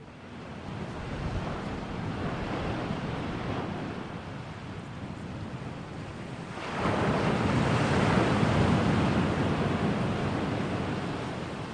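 Rushing nature-sound noise bed, like surf. It builds in the first second, then swells suddenly louder and deeper about seven seconds in and slowly fades toward the end.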